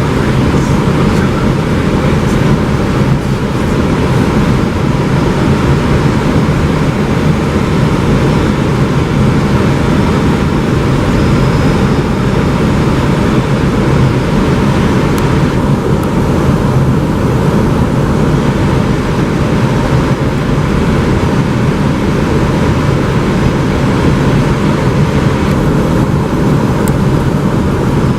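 Airbus A320 on final approach: a steady rush of airflow and engine noise inside the cockpit.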